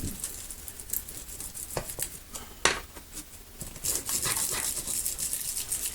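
Thin decorative transfer foil being handled and pressed onto the machine, with a few light taps, then a steady rubbing from about four seconds in as the foil is burnished onto the adhesive.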